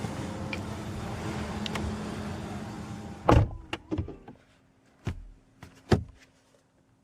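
Steady background noise that ends with a solid thunk about three seconds in, as the car's door shuts, after which it is much quieter. A few light clicks and taps follow from inside the car's cabin.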